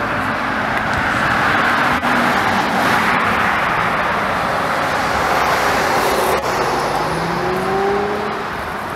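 Cars driving past on the road: a Dodge Charger goes by with a steady rush of engine and tyre noise that swells over the first few seconds. Near the end another car's engine note rises as it accelerates away.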